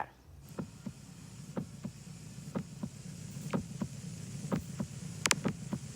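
Normal heart sounds from auscultation at the mitral area: paired S1 and S2 beats (lub-dub), about one pair a second, with nothing heard between them, over a low steady hum. A sharp click comes about five seconds in.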